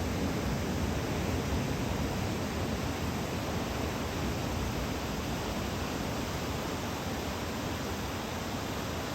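Steady rushing noise of ocean surf breaking on the beach under a typhoon swell, an even wash with no single wave standing out.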